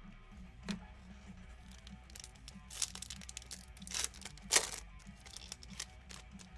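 Foil wrapper of a baseball card pack being torn open and crinkled by hand. There are several sharp rips, and the loudest comes about two-thirds of the way through.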